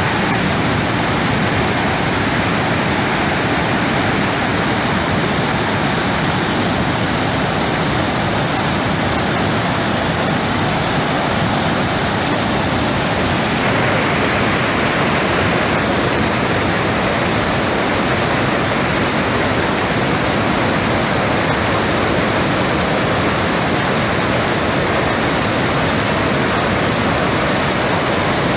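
Waterfall: the loud, steady rush of falling water, unbroken throughout.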